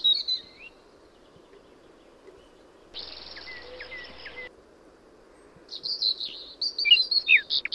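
Birds chirping and calling, ending in a quick run of repeated high chirps. About three seconds in, a brief high hiss with faint chirps in it starts and stops abruptly.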